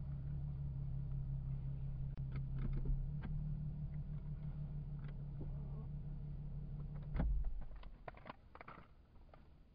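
A steady low mechanical hum that cuts off with a thump about seven seconds in, with scattered light clicks and taps before and after.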